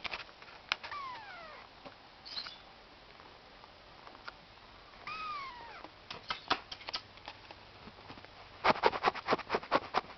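Cat meowing twice: a falling meow about a second in and an arching meow about five seconds in. Scattered light clicks come in between, with a quick run of taps near the end.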